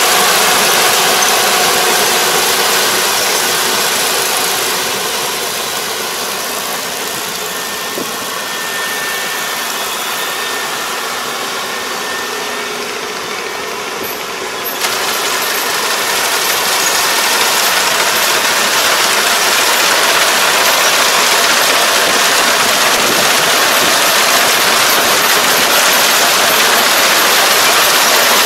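Rice combine harvester running as it cuts and threshes rice, a steady mechanical hiss with little clear engine pitch. It fades as the machine moves off, then jumps back to full loudness about 15 seconds in.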